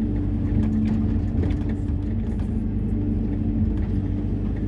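Hyundai 140 wheeled excavator's diesel engine running at a steady speed, a constant low hum heard from the operator's cab.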